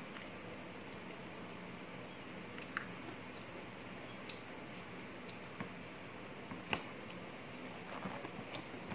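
Chopsticks and a spoon giving a handful of light clicks against dishes while eating, the loudest about two-thirds through, over a faint steady hum of room tone.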